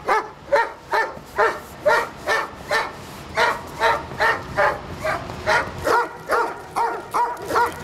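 German Shepherd police dog barking in a rapid, steady run, about two to three barks a second, while straining on its leash.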